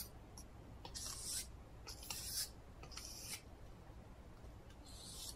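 Kitchen knife blade drawn in strokes across a sharpening stone: a faint, high scraping hiss on each pass, about one stroke a second.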